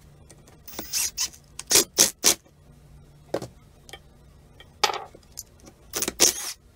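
Milwaukee cordless impact driver run in several short bursts, spinning a bolt in and out of a cast vise without hammering, with metal clinks and scraping between the bursts. The bursts come about a second in, three close together around two seconds, one at about three and a half seconds, one at about five, and a longer run near the end.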